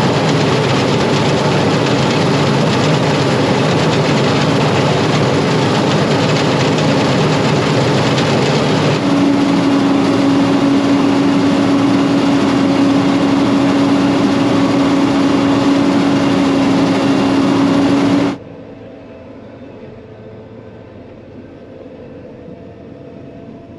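Combine harvester running hard, cutting wheat: a loud, steady machine noise, with a strong steady hum joining about halfway through. It cuts off suddenly to a much quieter steady hum.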